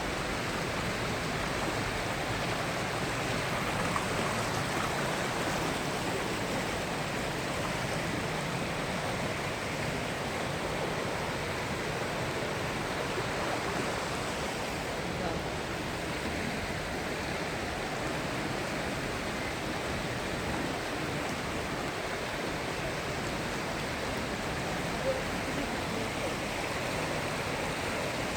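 Fast-flowing mountain stream rushing over rocks: a steady, unbroken rush of water.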